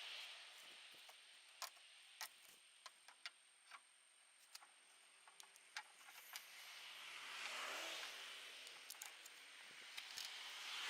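Faint, scattered clicks and taps, about a dozen, from hand tools and plastic trim working on the inside of a car's rear hatch panel. A vehicle passes in the background about seven seconds in.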